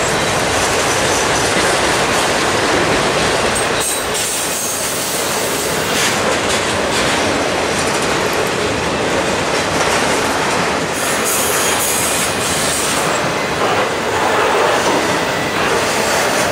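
Autorack freight cars rolling past on the rails: a steady, loud run of wheel-on-rail noise with a few brief knocks.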